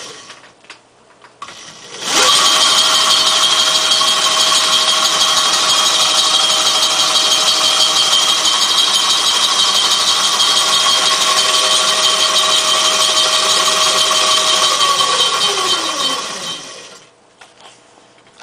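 Motor-driven chain-and-sprocket drivetrain of a homemade space-elevator wheelchair prototype, running. It starts abruptly about two seconds in and keeps a steady whine over mechanical noise. Near the end the whine drops in pitch and fades over about two seconds as the drivetrain spins down.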